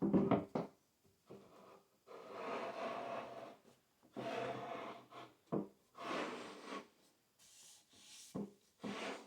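Wood rubbing and scraping on wood in several separate strokes, each about a second long.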